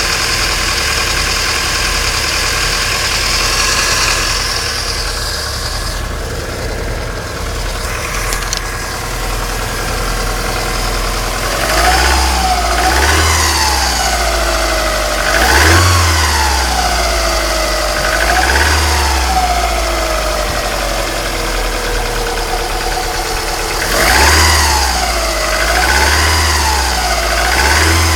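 Alfa Romeo 155 2.0 Twin Spark 16V engine idling steadily, then blipped about seven times in the second half, the revs rising and falling back each time. The owner suspects a mysterious noise from it may be bad alternator bearings.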